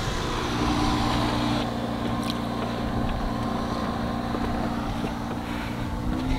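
A boat engine running steadily with a low, even hum, under a rushing hiss that eases off about two seconds in.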